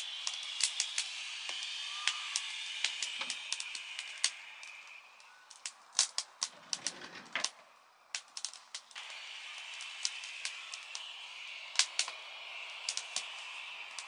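Wood fire crackling in a camp stove under a steaming stew pot: sharp, irregular pops and snaps over a steady hiss that dies away for a few seconds in the middle.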